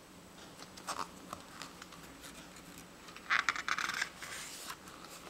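Pages of a glossy picture book being handled and turned by hand: a few small clicks and taps about a second in, then a louder papery rustle and scratch as a page is turned a little after three seconds.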